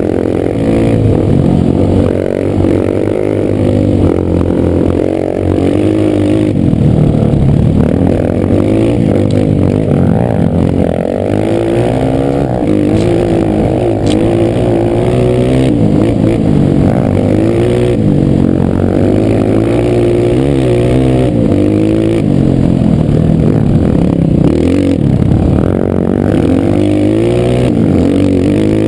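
Honda CRF230 trail bike's single-cylinder four-stroke engine running hard, its revs rising and falling over and over as the bike is ridden.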